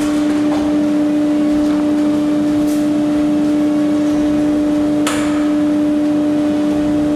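SCM Minimax Lab 300P combination woodworking machine running with a steady hum, with a short click about five seconds in.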